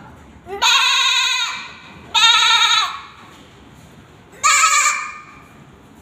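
A girl imitating a goat with her voice: three bleats with a wavering pitch, the last one shorter than the first two.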